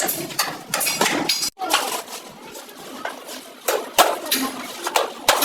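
Hand tools tapping and clinking on metal at an uneven pace, in two clusters of sharp knocks.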